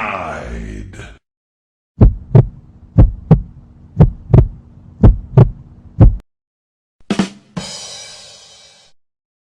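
Heartbeat sound effect: low double thumps, about one beat a second, five times in a row. It is preceded by the fading tail of a falling sound and followed by a short hit and a fading hiss.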